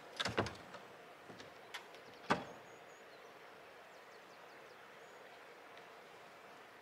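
A door being shut: a cluster of knocks and rattles in the first half-second, a few lighter clicks, then one sharp bang a little over two seconds in.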